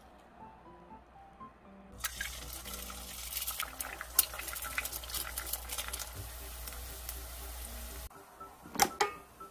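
Egg frying in a pan, sizzling steadily with many crackling pops; it starts about two seconds in and cuts off abruptly after about six seconds. Soft background music before and after, and a single sharp click near the end.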